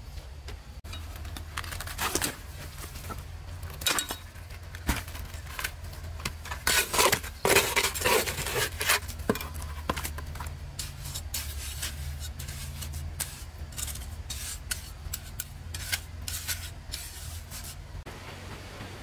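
Irregular knocks, clinks and scrapes of objects being handled, busiest about seven to eight seconds in, over a steady low hum.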